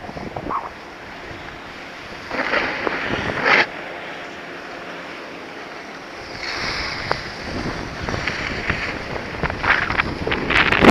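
Rushing, scraping hiss of sliding down a ski slope on snow, swelling with each turn, with wind buffeting the microphone. It grows louder towards the end as speed builds.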